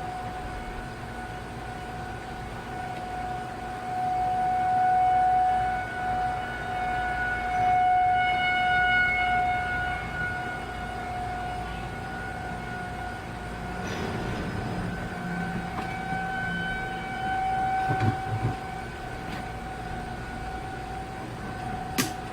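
Federal Signal 2001-SRN rotating outdoor warning siren sounding a steady single tone during a test. Its loudness swells and fades as the siren head turns, loudest twice in the first half. A sharp click comes near the end.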